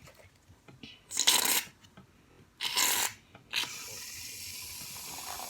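Plastic bottle of craft paint squeezed into slime: two short noisy squirts, then a steady hiss for about two seconds near the end.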